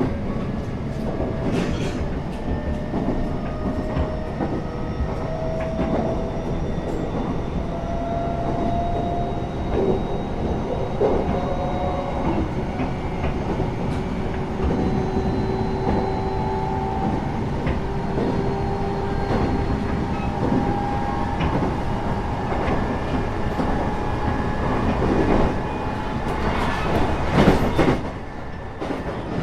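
Electric train carriage running along the line, heard from inside: a steady rumble of wheels on rail with scattered clicks and clacks, and the motors' whine gliding slowly in pitch. It swells louder shortly before the end, then drops off.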